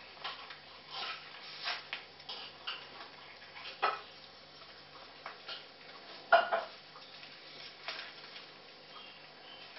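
Puppies eating from food dishes: irregular clicks and clinks of the bowls, a second or two apart, the loudest about six seconds in.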